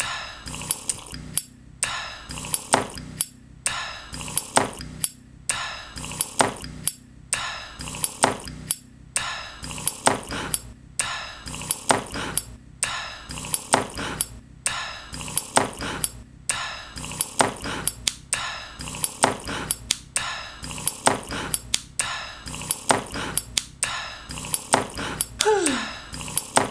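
Repeated tapping and clinking on hard objects, several strikes a second with a ringing tone, in groups that repeat about every two seconds like a beat. A short falling tone sounds near the end.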